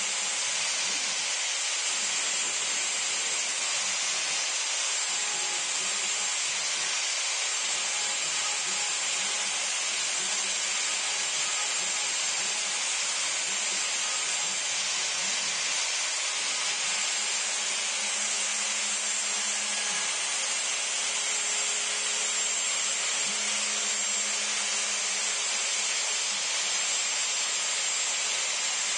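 The router on a CNC Mogul machine runs at speed while its bit cuts into a cedar fence board. It makes a steady, high-pitched whine over a continuous cutting hiss.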